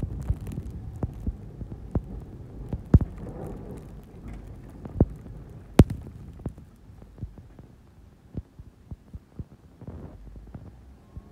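Pickup plow truck pushing snow with its front-mounted blade: a low rumble with irregular sharp knocks and thumps, which thin out and grow quieter in the second half.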